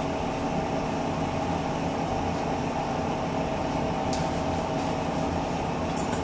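Steady mechanical hum of a running household appliance, holding a few fixed tones, with a light click about four seconds in.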